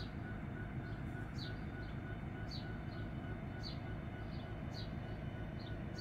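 Steady low rumble of a diesel locomotive idling off in the rail yard, with a bird repeating a short high falling whistle about once a second.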